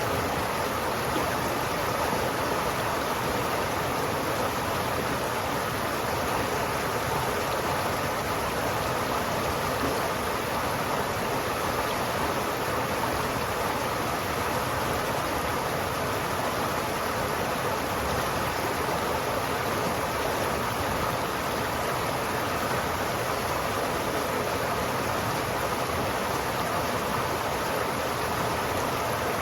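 River water flowing steadily, an even rushing with no breaks or changes.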